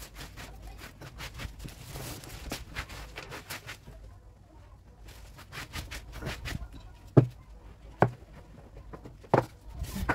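Plastic bag rustling and crinkling as things are handled and stuffed into it. Then, about seven seconds in, come three sharp knocks of small hard objects being set down, with the last two coming over the next two and a half seconds.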